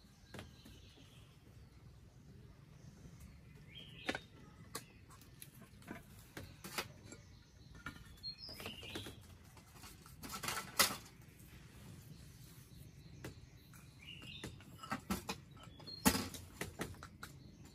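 Scattered light clinks and taps of tableware as rice is served: bowls, spoons and a metal rice pot and its lid being handled, with a clustered clatter about ten seconds in and again near the end. A few bird chirps sound in the background.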